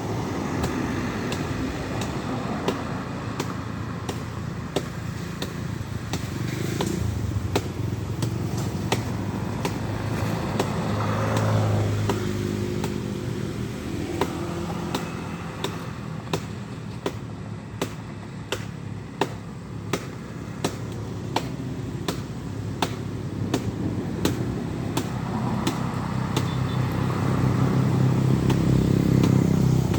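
Heavy tronton trucks' diesel engines labouring up a steep climb, with a louder engine drawing near over the last few seconds. Sharp clicks, about one or two a second, run through the middle.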